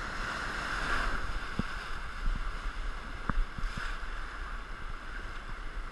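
River rapids rushing and splashing around an inflatable raft, with a few sharp knocks, the loudest a little over three seconds in.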